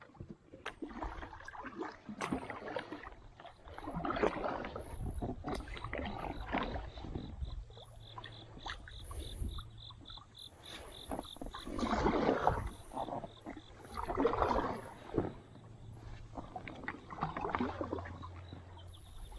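Kayak paddle strokes in the river water, a splashing swell every two to three seconds.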